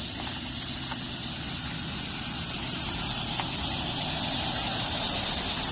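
Ford F-150 pickup truck's engine running at low speed as the truck rolls slowly closer, growing a little louder toward the end, over a steady high hiss.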